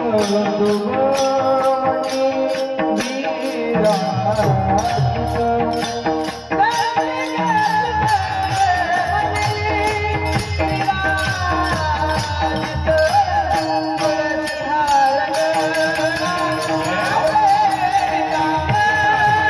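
Devotional kirtan singing: a solo voice sings a melody with wavering ornaments over a steady jingling hand-percussion beat.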